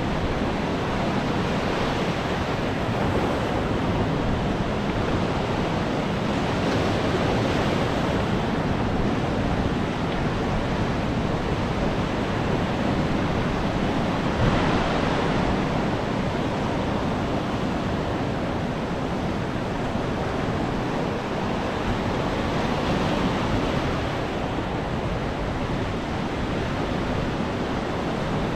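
Ocean surf washing onto the shore, a steady rush that swells as waves break every few seconds.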